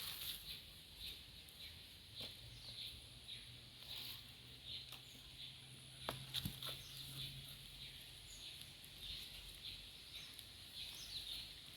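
Faint background of scattered bird chirps, with a few soft clicks and rustles.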